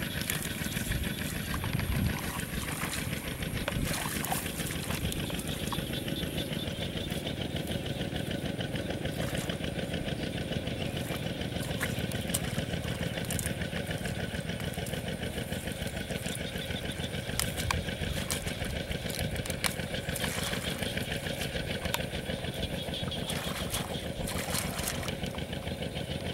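An engine running steadily, with a few short clicks over it.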